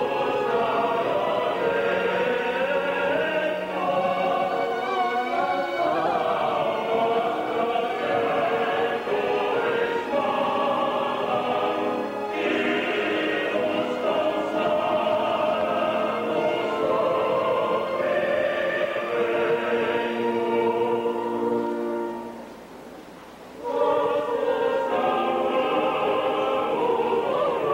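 Choir and orchestra performing a sacred choral composition, with sustained sung chords, on an old VHS recording. The music breaks off for a moment about 22 seconds in, then the choir comes back in.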